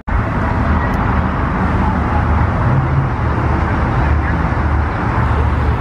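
Rolls-Royce Cullinan's twin-turbo V12 running at low speed as the SUV rolls slowly past. It is a steady low engine rumble with tyre and street noise.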